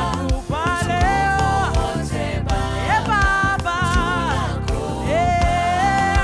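Gospel worship music: voices singing sustained, wavering notes over a full band with drums and bass.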